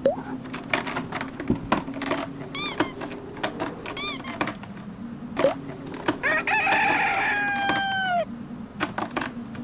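A rooster crowing once, a long call of about two seconds starting about six seconds in and falling in pitch at its end. Before it come a series of short, sharp chirps and clicks over a steady low hum.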